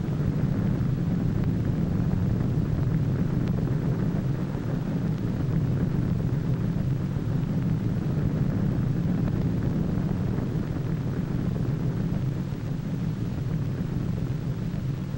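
Steady low rumbling roar laid over footage of an atomic bomb blast's rising cloud column, with the hiss of an old film soundtrack.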